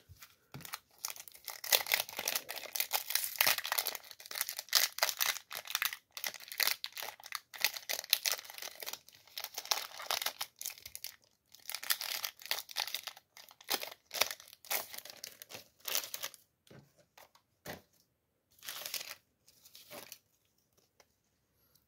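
Foil wrapper of a Yu-Gi-Oh booster pack crinkling and being torn open by hand. Near the end it gives way to a few short, separate rustles as the cards are handled.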